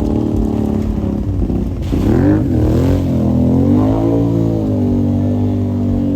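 Small off-road vehicle engine running, its pitch dipping and rising as it is revved about two seconds in, then running fairly steady.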